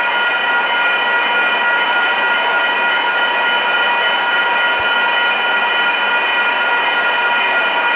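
Amtrak Pacific Surfliner passenger train with an F59PHI diesel locomotive, a loud steady rush of train noise with several high whining tones held unchanged throughout.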